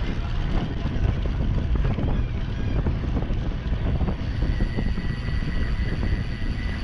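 Wind buffeting the microphone of a bicycle-mounted camera riding at about 30 km/h, a steady low rushing noise. A faint steady high tone joins about four seconds in.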